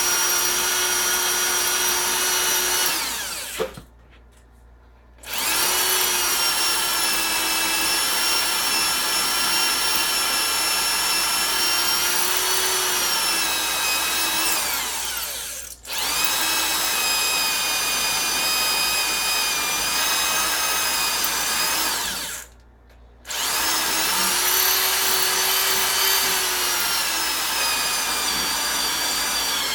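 Power drill boring out a factory lower ball joint rivet on a 1994 GMC K1500, the motor whining steadily as the bit cuts. It winds down and stops about four seconds in, stops again briefly about halfway, and once more near three-quarters through, each time spinning back up.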